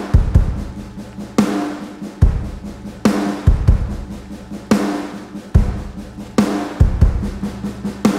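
Background music with a steady drum-kit beat, kick and snare hits over a held bass line.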